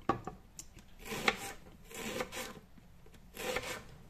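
Kitchen knife slicing a spring onion bulb on a wooden cutting board: a handful of slow, crunchy cuts, each ending in a knock of the blade on the wood, the sharpest about a second in.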